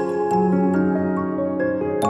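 Gentle new-age instrumental background music, with held notes that change every half second or so.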